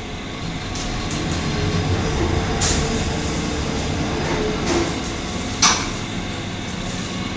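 OTIS Gen2 traction lift car travelling between floors, heard from inside the car: a steady low rumble with a faint hum and a few light clicks. A sharper clunk comes about five and a half seconds in as the car arrives and its doors slide open.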